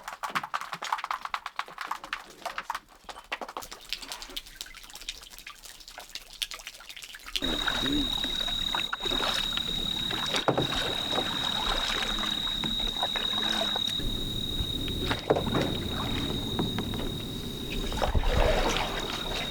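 Water around a kayak at night: fine trickling and dripping at first, then a sudden change to a louder, steady wash of water with scattered knocks and a constant high-pitched tone.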